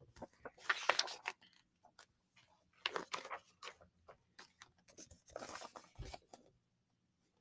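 Paper rustling and crinkling as the pages of a picture book are turned and the book is handled, in three short bouts.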